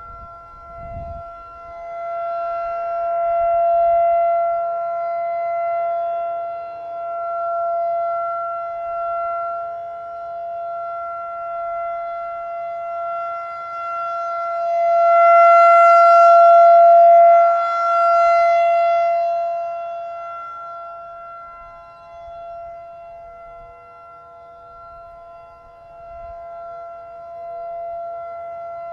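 Federal Signal 2001-DC outdoor warning siren sounding its full alert, one steady tone. Its loudness swells and fades as the rotating head turns, loudest about halfway through.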